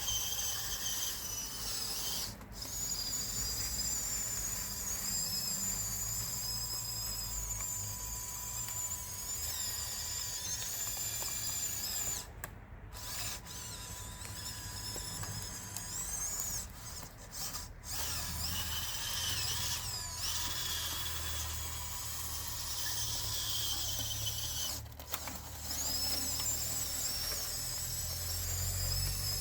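Small electric motors and gearboxes of a Huina 1554 radio-controlled bulldozer whining at a high pitch that wavers up and down, with a low rumble under it; the whine stops for a moment about four times.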